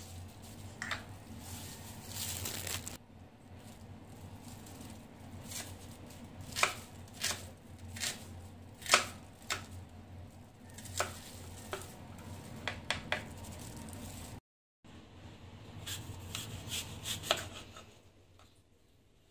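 Kitchen knife chopping a red onion on a cutting board: irregular sharp knocks of the blade hitting the board, roughly one a second with quicker clusters, over a soft slicing sound. It goes quieter near the end.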